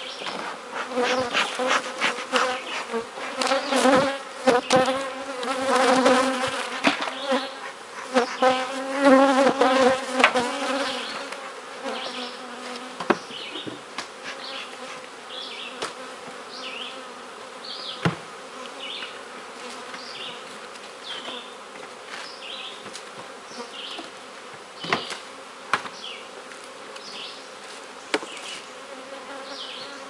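Honeybees buzzing loudly close to the microphone for the first ten seconds or so, the pitch wavering as they fly past. Then the softer, steady hum of bees around open hives, with a few sharp knocks.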